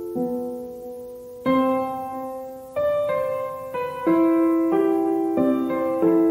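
Background music: a slow, gentle piano piece, notes and chords struck about once a second and left to ring and fade.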